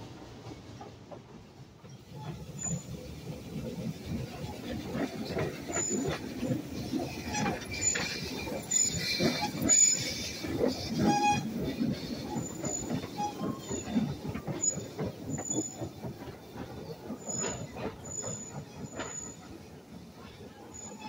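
A 1937 Porter 0-4-0T narrow gauge steam tank locomotive and its cars rolling past, the wheels clattering over the rail joints with brief high squeals. It is loudest about ten seconds in as the engine goes by, then fades as the train moves away.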